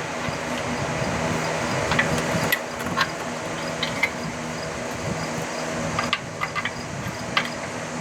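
Metal tools and parts clinking and knocking a dozen or so times during engine-bay work, with a cluster of clinks near the end, over a steady mechanical hum.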